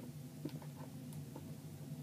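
Fingers picking and scratching at a gaming headset's retail box, making a few small scattered clicks and scrapes, over a steady low hum.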